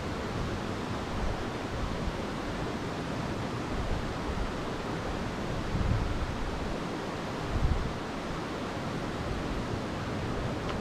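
Steady wind noise in a bare forest, with two brief gusts buffeting the microphone about six and seven and a half seconds in.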